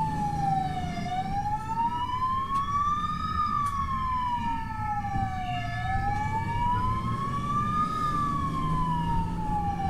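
Emergency vehicle siren in a slow wail, its pitch rising and falling about every two and a half seconds, over the low rumble of the vehicle's engine and road noise.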